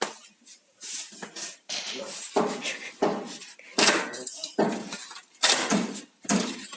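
Water purifier parts and their plastic packaging being handled during unboxing: a string of irregular clatters and rustles, busier and louder after about two seconds.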